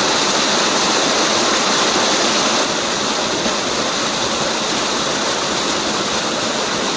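Small waterfall pouring over rocks: a close, steady rush of splashing water that eases slightly a few seconds in.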